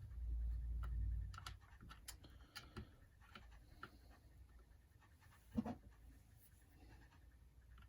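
Quiet bench handling of small screws and tools: a low rumble for the first second or so, then scattered light clicks and taps, with one louder knock about five and a half seconds in.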